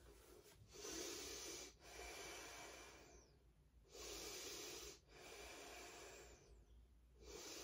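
Faint, slow breathing of a woman holding a yoga pose: a run of breaths in and out, each about a second long, with short pauses between them.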